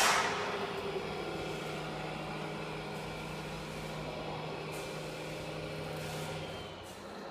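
Radio-controlled truck's sound module: a sharp air-brake hiss at the start fading within about a second, over a steady simulated diesel engine note as the truck drives with its low-loader.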